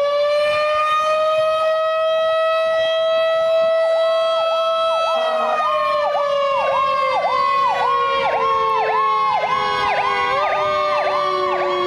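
Fire station house siren sounding a steady tone that slowly falls in pitch from about five seconds in. Over it, a fire engine's siren starts a rapid yelp.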